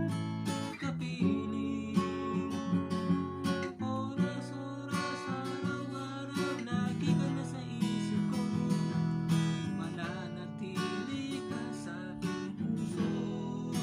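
Steel-string acoustic guitar strummed in steady chords, accompanying a man singing.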